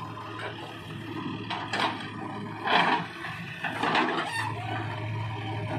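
JCB 3DX backhoe loader's diesel engine running with a steady low hum while its bucket swings back and digs into the earth. Three short, loud, harsh bursts come about a second apart in the middle.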